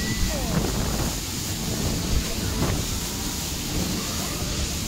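Wind buffeting the microphone in a steady low rumble, with faint distant voices behind it.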